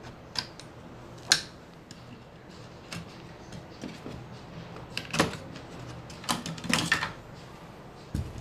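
Sharp plastic clicks and knocks as cable connectors are unplugged from an LCD TV's power-supply board and the board is worked loose from the sheet-metal chassis. There is a busier run of clicking and rattling near the middle-to-late part, and a dull thump near the end as the board is lifted out.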